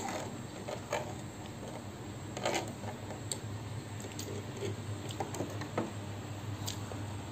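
Eating sounds: chewing, and a handful of light clicks from a metal fork and spoon against a tray, over a steady low hum.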